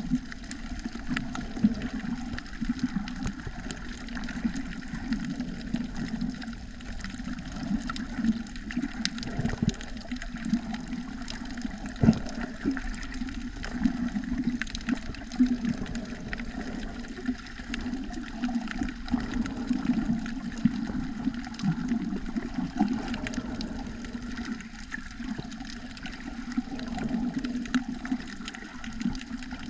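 Muffled, surging water noise recorded underwater, with scattered sharp clicks, one louder about twelve seconds in.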